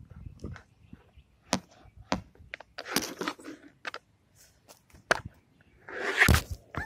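Handling noise from a handheld phone being carried: scattered clicks, knocks and rubbing on the microphone, with a louder rustle about six seconds in.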